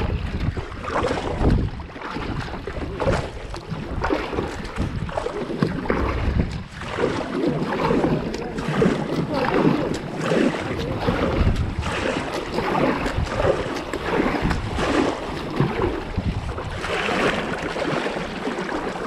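Kayak paddle blades dipping and splashing in the water, a stroke every second or so, with wind rumbling on the microphone.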